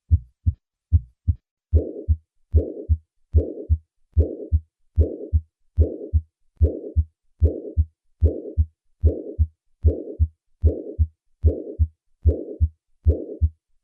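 Heart sounds through a stethoscope at about 72 beats a minute. The first couple of beats are clean lub-dub pairs. From about two seconds in, a whooshing systolic murmur of mitral regurgitation fills each beat.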